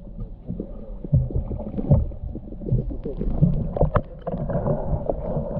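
Muffled underwater sound of a GoPro action camera moved through shallow pond water: irregular knocks and sloshing against the camera, with a low rumble, as it is brought up to the surface.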